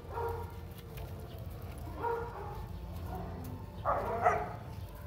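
A group of dogs giving short yips and whines, a few separate calls, the loudest about four seconds in.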